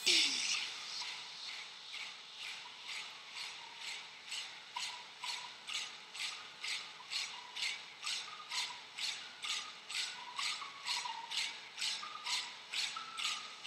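Rhythmic rasping, rubbing strokes, a little over two a second, each a short hiss like something being scraped back and forth.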